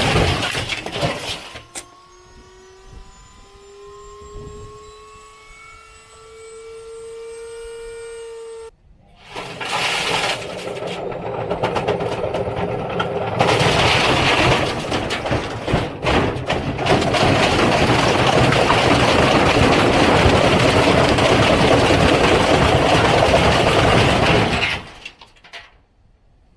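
Electrolux washing machine with a brick in the drum: a motor whine rises steadily in pitch as the drum speeds up, then cuts off suddenly. About a second later a loud, continuous rattling and banging starts and runs until it stops near the end.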